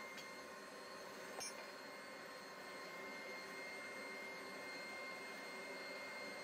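A single light metallic clink of steel on the anvil about a second and a half in, with a brief high ring. Under it, a steady hiss with a faint high hum throughout.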